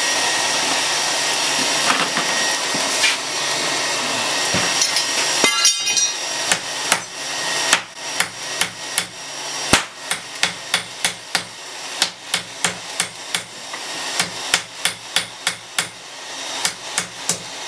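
A steady rushing noise for the first few seconds, then a hand hammer striking folded rebar at forge-welding heat on a steel anvil block, about two blows a second with short pauses: the hammering that sets the forge weld.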